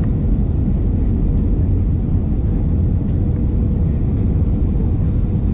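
Steady low rumble of an Airbus A319's cabin on final approach, engine and airflow noise heard from a window seat, with a faint steady hum running through it.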